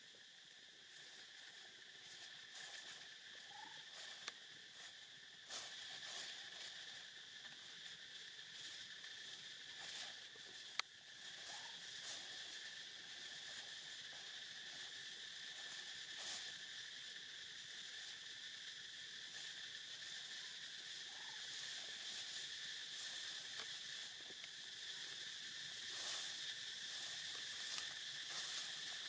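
Steady high insect chorus, with scattered light rustles and clicks over it and one sharp click a little before eleven seconds in.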